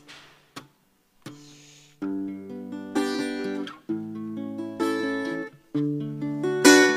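Acoustic guitar playing a slow strummed intro to a song: a few faint taps and a soft note at first, then chords from about two seconds in, a new chord roughly every second.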